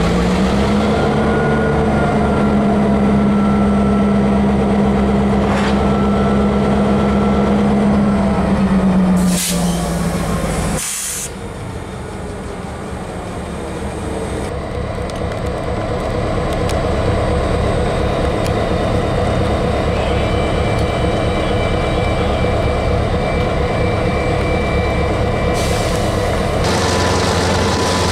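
Diesel locomotives rolling slowly past, engines running with a steady low drone and the hum of the moving units; a brief hiss about nine to eleven seconds in, after which the engine sound settles to a lower, steady running.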